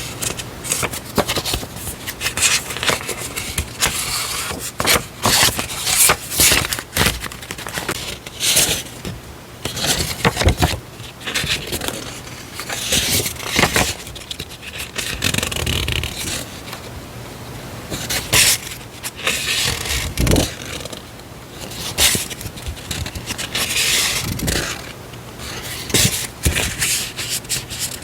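Paper stationery being handled: irregular rustling, scraping and crinkling with sharp clicks and taps.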